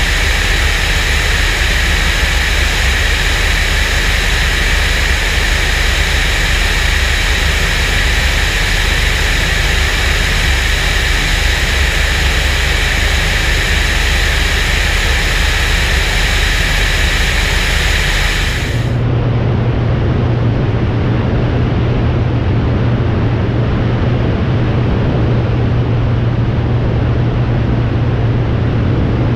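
Europa light aircraft in flight: a steady rush of airflow and engine noise, heard through a microphone on the outside of the airframe. About two-thirds of the way through, the sound changes abruptly to a steady low engine hum with less hiss.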